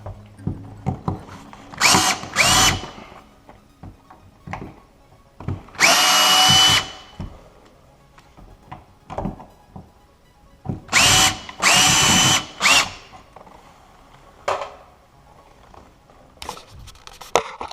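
Power drill running hinge screws in several short bursts, each whine rising quickly to a steady pitch, the longest about a second long, with small clicks and knocks of handling between bursts.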